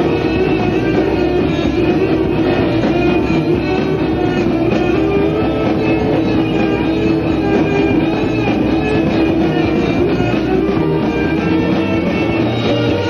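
Live rock band playing, with electric guitar to the fore over drums.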